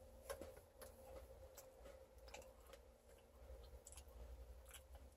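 Faint chewing of a milk-dipped Oreo filled with popping candy, with scattered soft clicks and crackles at irregular intervals.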